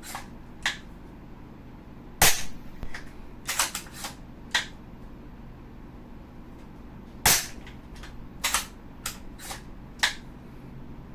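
Double Bell VSR-10 spring-powered bolt-action airsoft rifle fired twice, about five seconds apart, each shot a sharp snap. After each shot comes a short run of lighter clacks as the bolt is worked to cock the spring and chamber the next BB.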